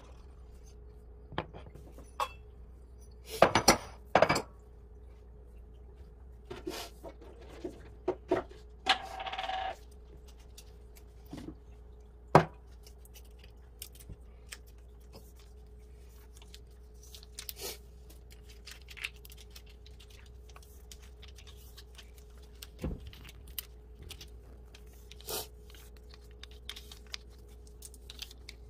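Ceramic cat food bowls clinking and knocking as they are set down on the kitchen counter and filled with food: scattered sharp clinks, a cluster of them about four seconds in and another strong one near the middle, with a short rustle in between. A faint steady hum runs underneath.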